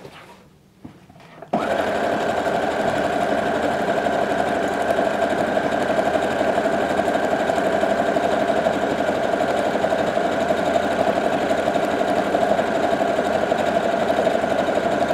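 Brother HC1850 computerized sewing machine sewing a line of decorative stitch 12, after a couple of faint clicks; the steady motor-and-needle running starts abruptly about a second and a half in.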